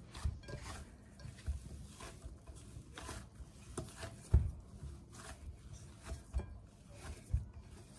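Hands kneading buttery shortcrust dough in a glass bowl: irregular soft pressing and rubbing sounds with light knocks, and one louder knock about halfway through.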